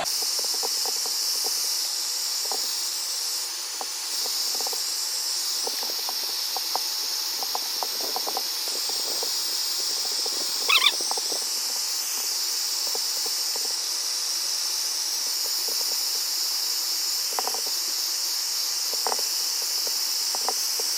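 Hair dryer blowing steadily, heating Talon adhesive grip panels on a Glock 19 frame so they mold to it. Faint small clicks run under it, and a brief squeak sounds about eleven seconds in.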